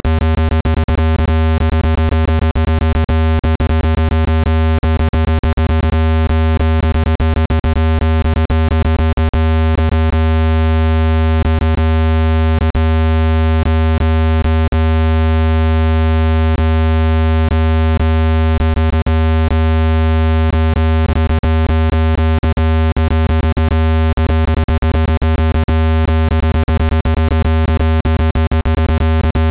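Synthesized speaker-cleaning tone: a loud, deep, steady hum with a ladder of higher steady overtones, broken by fast, irregular crackling clicks. It is meant to be played at full volume to vibrate a speaker and shake dust out of its grille.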